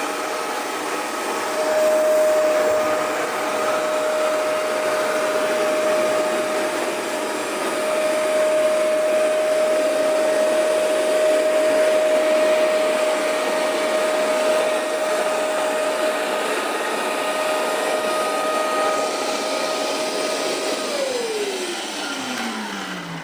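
Hoover Maxextract 77 carpet cleaner running, a steady motor whine over rushing suction. About 21 seconds in it is switched off and the motor winds down, its whine falling in pitch.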